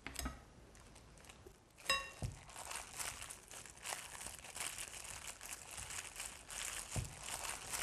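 A plastic-gloved hand squeezing and mixing slices of seitan with chili sauce in a bowl: faint, irregular crinkling of the glove and soft squishing that start about two seconds in, just after a short clink.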